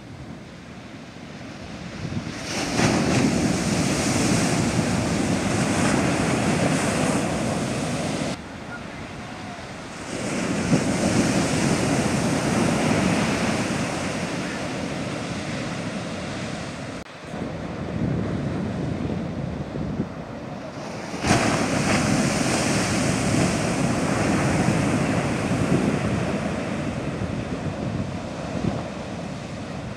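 Heavy shorebreak waves crashing and surf washing, with wind buffeting the microphone. Several loud spells start and stop abruptly, about two, ten and twenty-one seconds in.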